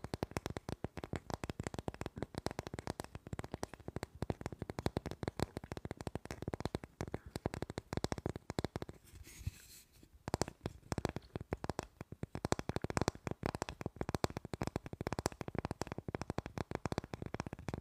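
Long fingernails rapidly tapping and scratching the textured, painted surface of a flat rectangular object held close to the microphone: a dense, fast crackle of nail clicks and scrapes, with a brief pause about halfway through.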